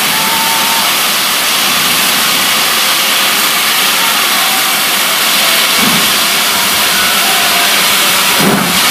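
GWR Hall class 4-6-0 steam locomotive No.5972 hissing steam loudly and steadily as it departs, with a couple of low soft puffs in the second half.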